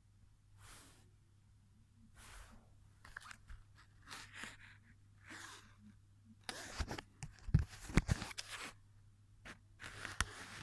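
Printed paper model train being handled: paper crinkling and rustling in short scattered bursts, busiest and loudest with a few knocks about two-thirds of the way through.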